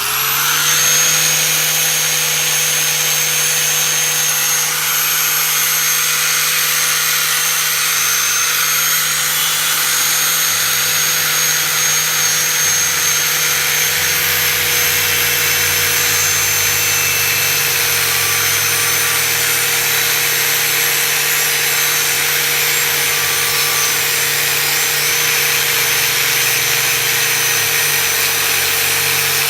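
Angle grinder spinning up and then running steadily, grinding rust off a thin steel machete blade.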